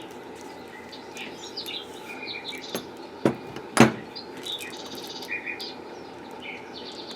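A small bird chirping and twittering repeatedly in the background. Two sharp knocks come about half a second apart, a little past three seconds in.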